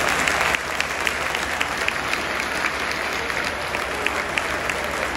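Stadium crowd of football supporters applauding, a dense steady patter with single sharp claps standing out; it drops a little in loudness about half a second in.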